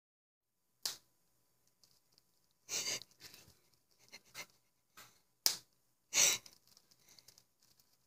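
A person's nose pinched between the fingers making a string of sharp clicks, with two longer, breathier sniff-like bursts among them, about every second or so.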